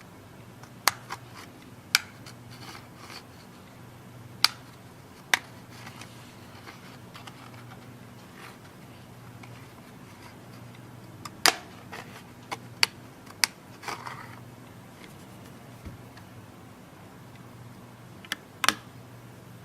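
Sharp plastic clicks and snaps, about ten of them, scattered irregularly: the retaining clips of a Samsung Galaxy Tab 3's plastic back housing popping loose as it is pried off the bezel, with a light scratching of plastic between them.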